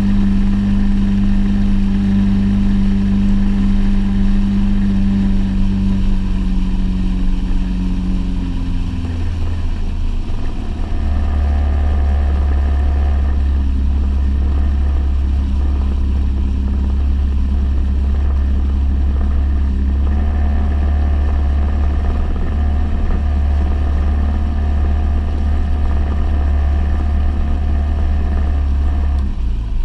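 A fishing boat's motor running under way, with water and wind noise. About a third of the way through, the steady engine note fades and a heavier, lower rumble takes over and holds until near the end.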